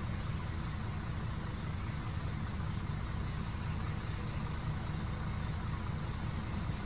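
An engine idling steadily: a low, even hum with a faint hiss above it.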